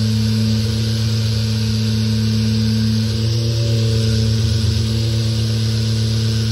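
Electric random orbital sander with a dust-extraction hose running steadily while sanding wood parquet: a constant motor hum over the hiss of the pad on the wood.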